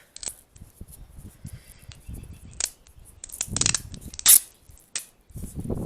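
Handling and rummaging noises: a series of sharp clicks, knocks and short rasps from objects being picked up and moved. The loudest click comes about four seconds in.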